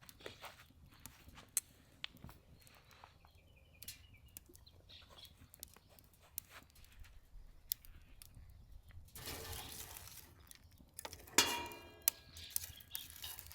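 Wood fire crackling in a Solo Stove Ranger fire pit, with sharp pops scattered throughout and a few bird chirps. Near the end a louder, denser sound with ringing tones comes in.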